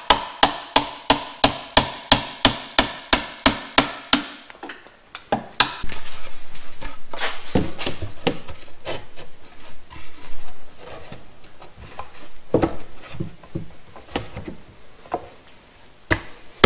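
A hammer striking cedar, quick even blows about four a second that stop about four seconds in. Then wood scraping and rubbing with scattered knocks.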